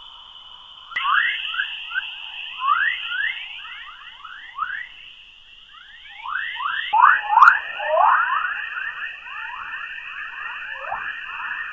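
A planet's 'sound', space recording data converted into audio: a dense chatter of short whistling chirps, each falling in pitch, over a steady high hiss. The chirps thicken and grow louder in the second half.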